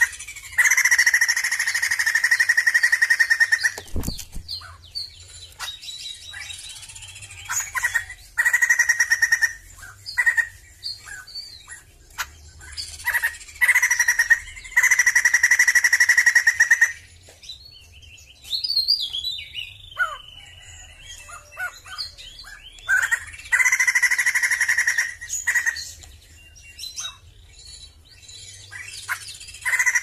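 Sumatran laughingthrush (poksay jambul) singing in loud, sustained calls of one to three seconds each, repeated about six times, with softer chirps and short notes between them. A single sharp knock sounds about four seconds in.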